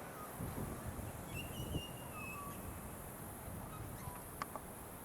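Outdoor ambience with a bird calling a short run of whistled notes about a second in, over a steady low rumble, and one sharp knock a little after four seconds.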